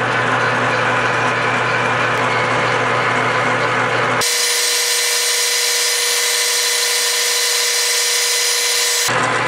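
Metal lathe spinning at 725 RPM while a high-speed-steel boring tool, fed in by hand, cuts inside a drilled hole: a steady hum with cutting noise. About four seconds in the whole sound jumps higher and brighter because it is sped up four times, and it drops back to normal just before the end.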